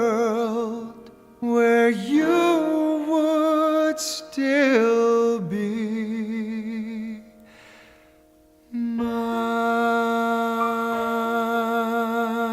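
Wordless sung phrases with vibrato close a slow ballad, then a short quieter pause, and from about nine seconds in a long, steady held chord.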